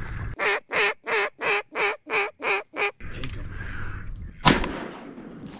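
A run of about eight evenly spaced mallard quacks, roughly three a second, then a single loud shotgun shot about four and a half seconds in.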